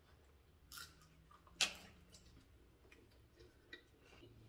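Crunchy bites into a deep-fried spring roll: two sharp crunches just under a second apart, the second the loudest, followed by a few faint crackles of chewing.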